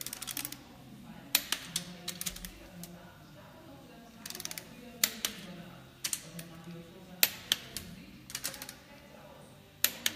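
Click-type torque wrench tightening the cylinder head stud nuts of a VR6 engine, nut after nut, in the 60 Nm step of the torque sequence. Short runs of ratchet ticks come with a sharp click each time the wrench breaks at the set torque, four loud clicks spaced a few seconds apart.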